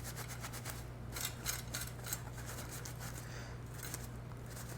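Short, irregular scraping and rubbing strokes on the light fixture's metal housing as rust and flaking powder coat are cleaned off, over a steady low hum.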